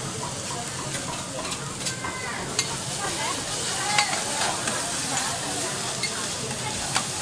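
Vegetables sizzling on a hot flat steel griddle while metal spatulas scrape and turn them. A few sharp metal clinks of spatula on the plate are heard, the loudest about four seconds in.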